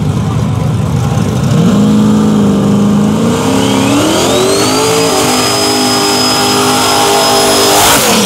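Turbocharged Chevrolet Silverado drag truck's engine revved up in steps and held at high rpm through a burnout, with a turbo whine that rises and then holds steady over the hiss of a spinning rear tyre. The sound cuts off suddenly near the end.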